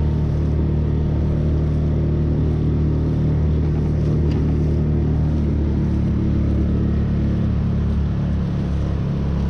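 Small outboard motor on a kayak running steadily under way, pushing the boat along at cruising speed. Its pitch shifts slightly about halfway through.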